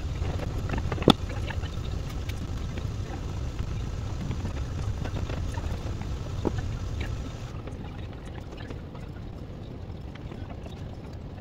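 Sped-up sound of a wooden tool digging and scraping into a block of clay on a banding wheel: a low rumble with a few sharp knocks, the loudest about a second in.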